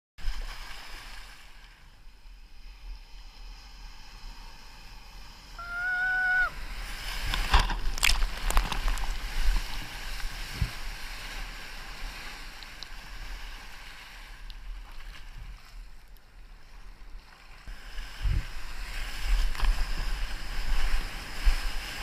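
Rushing surf and splashing whitewater around a kayak riding breaking ocean waves, with a low rumble throughout. A short high held tone sounds about six seconds in, and sharp loud splashes follow around eight seconds.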